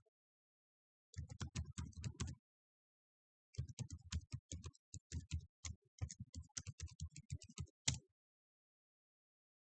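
Typing on a computer keyboard: quick runs of keystrokes, a short burst and then a longer stretch of several seconds, with a single harder key press near the end.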